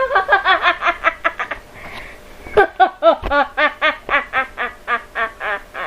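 A woman's maniacal villain laugh, a high-pitched cackle of rapid "ha-ha-ha" bursts in two long runs, with a short breath in between about two seconds in.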